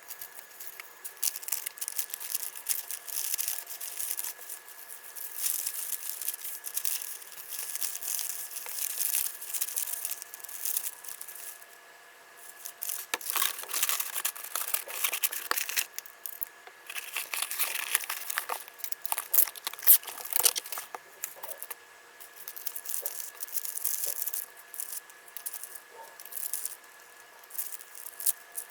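Packing materials being handled: irregular rustling and crinkling of wrapping, with tearing sounds and small clicks, pausing briefly now and then.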